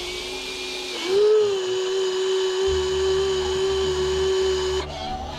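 Electric motors of a toy RC excavator whining steadily as the boom and bucket are raised, the pitch stepping up about a second in.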